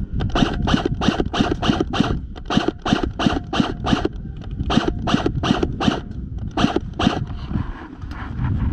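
Quick footsteps crunching over rough outdoor ground, about four a second, stopping about seven seconds in, with a low rumble of wind on the microphone.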